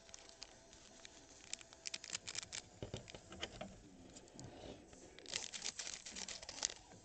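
Trading-card pack wrapper and cards being handled, crinkling in two bursts of quick crackles, one about two seconds in and another about five seconds in.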